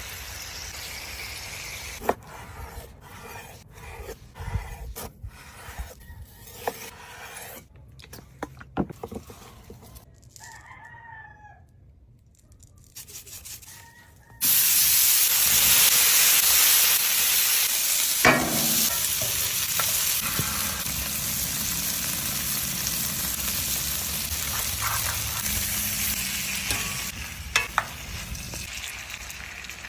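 Kitchen prep knocks and clicks, then about halfway in a loud sizzle starts suddenly as food hits a hot pan and keeps frying steadily, with occasional utensil knocks, easing off near the end.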